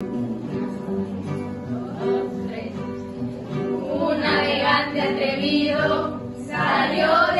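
A children's-style song with instrumental accompaniment; a group of voices joins in singing about four seconds in.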